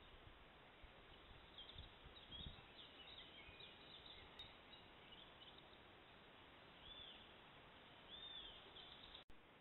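Faint woodland birdsong: scattered high chirps from small birds, then two short arched calls near the end, over a steady hiss. A couple of soft low thuds come in the first few seconds.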